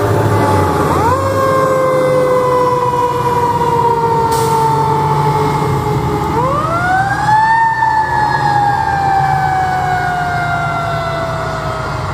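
Fire truck siren winding up twice, about a second in and again around six seconds in, each time rising quickly in pitch and then sliding slowly back down, over the low rumble of a heavy engine.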